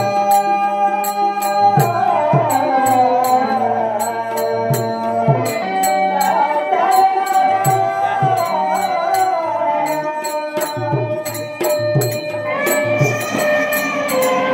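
A woman sings into a microphone in long, bending, held notes, rising higher near the end. A keyboard, drum beats and evenly spaced clicks, about three to four a second, accompany her.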